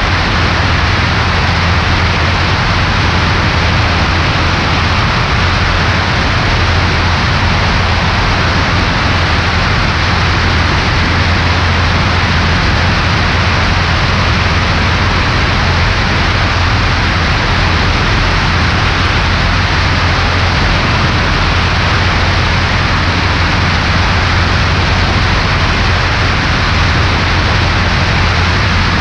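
A Cessna 140A's four-cylinder Continental engine and propeller droning steadily in flight, under a heavy rush of wind noise. The engine has a new cylinder being broken in.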